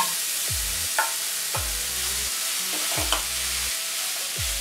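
Khoya (mawa) stirred and roasting in a non-stick pan: a steady sizzle, with a few short scrapes of the spatula against the pan, about a second and about three seconds in.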